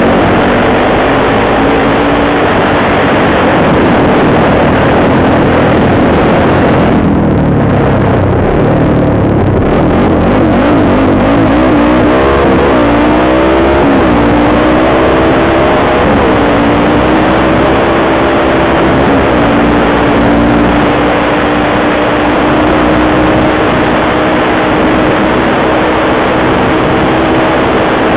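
Quad bike engine running hard across rough ground, with heavy wind rush on the microphone. Its revs rise and fall several times about a quarter to halfway through, then hold nearly steady.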